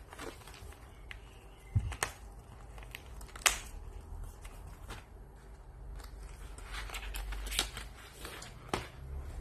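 Hands handling a cardboard colored-pencil box: scattered light taps and knocks against the cardboard, with fingers rubbing and sliding over it. The sharpest knock comes about three and a half seconds in, and there is a spell of rustling and scraping a little past the middle.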